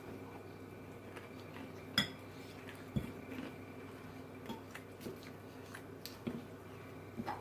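Cutlery clinking against a dish while eating salad: one sharp ringing clink about two seconds in, a knock a second later, then scattered softer clicks.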